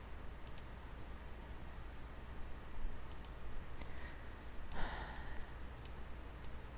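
A few scattered sharp clicks of a computer mouse as the map is clicked and dragged. There is a short breath about five seconds in, over a faint steady low hum.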